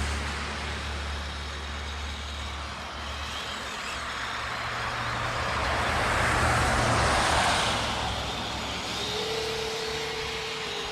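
Kyosho Blizzard 2.0 RC snow vehicle running on its twin brushless motors, its tracks churning through snow; the sound swells about six to seven seconds in, and a steady hum joins near the end.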